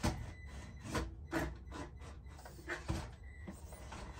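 Mini-scale RC crawler truck crawling over the course, its tyres and chassis scraping and knocking against the obstacles in several irregular knocks over a low steady running noise.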